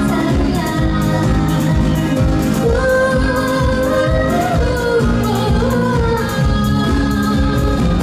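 A woman singing live, accompanied by her own strummed acoustic guitar in a steady rhythm.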